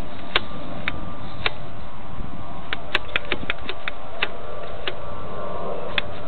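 Steady running noise of a small electric RC plane's motor and propeller, picked up by a cheap onboard camera's microphone, with a faint steady hum. About a dozen sharp clicks are scattered over it, bunched together around the middle.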